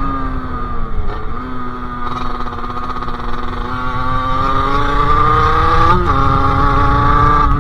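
Sherco SM-R 50's 50cc two-stroke engine with a KRM aftermarket exhaust, under way. The engine note dips about a second in, holds steady, climbs gradually, then drops sharply just after six seconds before settling again.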